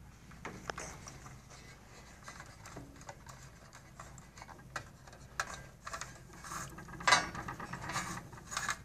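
Irregular light clicks and taps as a thin wire is pushed along a metal tower rail and pressed under small clips, with a louder rustle of handling about seven seconds in.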